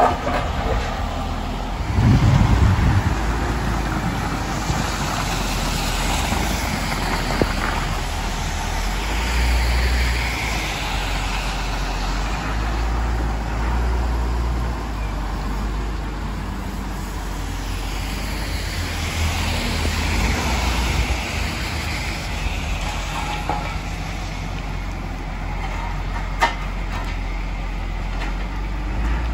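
Road traffic on wet pavement, with two vehicles swelling up and fading away as they pass, over a steady low rumble. A heavy low thump about two seconds in, and a sharp click near the end.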